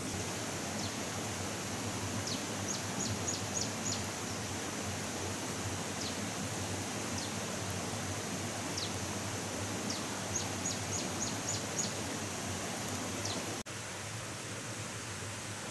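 A small bird singing two quick runs of about six high chirps each, with scattered single chirps between, over a steady outdoor hiss; the hiss drops abruptly near the end.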